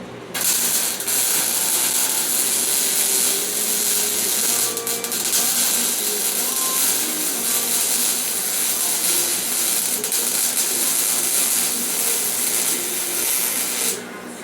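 Harbor Freight welder's arc crackling and sizzling steadily through one long weld bead, starting just after the beginning and cutting off near the end.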